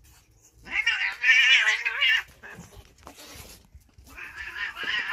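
A domestic cat yowling in a long wavering cry, then again more faintly near the end: an alarmed cat, startled by a sea crab.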